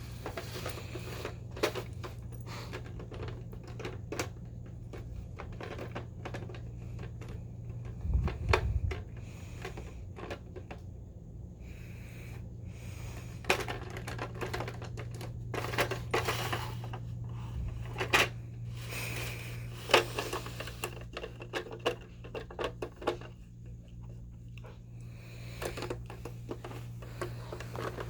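Irregular clicks and knocks of a dog's treat puzzle box, its pieces being nudged and shifted as the dog works at it, with a low thud about eight seconds in. A steady low hum runs underneath.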